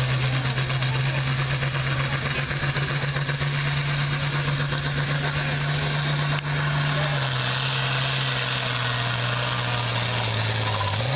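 Turbocharged diesel engine of an International Harvester pulling tractor running flat out under load as it drags a weight-transfer sled. A high whistle sits above the engine, typical of a turbocharger. The engine note sags a little about seven seconds in and again near the end.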